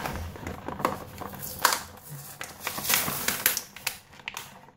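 Plastic toy packaging crinkling and rustling in irregular crackles as a multipack of Trashies toys is opened by hand.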